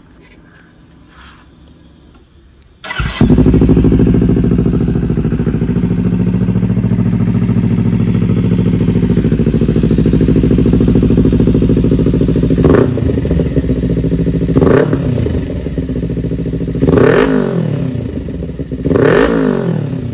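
Kawasaki Ninja 300's parallel-twin engine, breathing through an aftermarket slip-on exhaust, starts about three seconds in and idles steadily. In the second half it is revved four times, each a short rise and fall in pitch.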